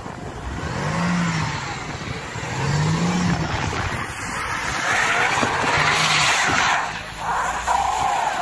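A car engine revs up and eases off twice, then runs on under load. About five to seven seconds in, a loud rush of tyre noise comes in as the wheels slip and spin on the rough track.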